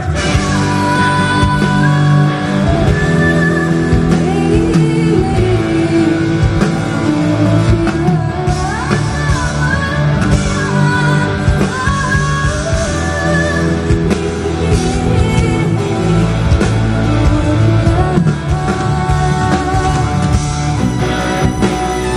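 A woman singing a song with live band accompaniment, a steady low backing under a gliding vocal melody.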